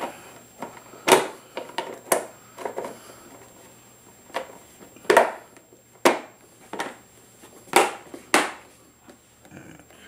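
Hard plastic knocks and clicks from a drip coffee maker's housing being handled and fitted back together, a handful of sharp, irregularly spaced knocks.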